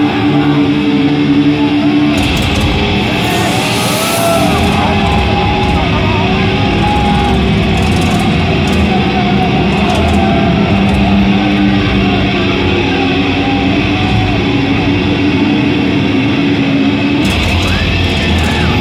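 Live thrash metal played through a concert sound system: long, held distorted guitar chords with a crowd shouting and cheering over them.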